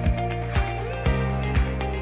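Background music with a steady beat: drum hits about twice a second over held bass notes that change about once a second.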